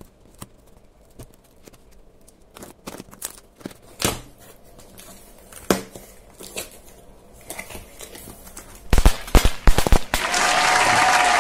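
A cardboard shipping box handled and opened by hand: its flaps and packing tape crackle and rustle in scattered clicks, with a quick run of loud snaps just before the end. Then loud music comes in.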